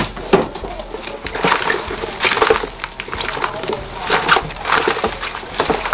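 Irregular rustling, clicks and knocks as hands rummage through a white plastic mesh shipping basket, unpacking its contents.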